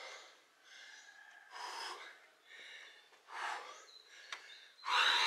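A person breathing hard from the exertion of burpees and push-ups, with forceful, noisy breaths about every second and a half; the last, near the end, is the loudest.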